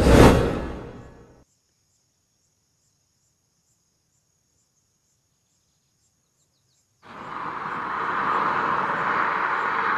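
A whooshing transition sound effect that fades away over about a second and a half, then silence. About seven seconds in, a steady buzzing insect chorus starts.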